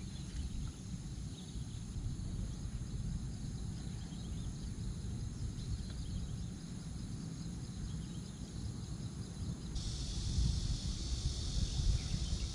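Steady outdoor ambience: a low rumble under a high insect buzz that jumps suddenly louder about ten seconds in.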